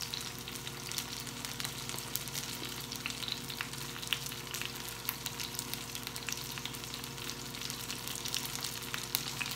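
Dakor na gota, gram-flour and fenugreek fritters, sizzling in hot oil in a frying pan, with many irregular crackles and pops over a steady hiss and a steady low hum underneath.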